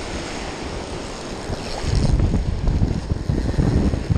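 Surf washing in the shallows with wind rumbling on the microphone; the rumble grows louder about two seconds in.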